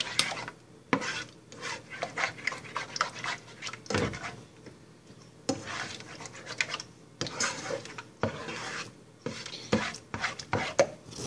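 A utensil scraping and stirring scrambled eggs around a frying pan, in irregular rasping strokes with short pauses between them.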